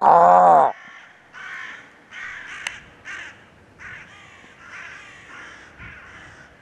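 Crows cawing: one loud, close caw at the start, then a run of fainter, more distant caws from crows flying overhead.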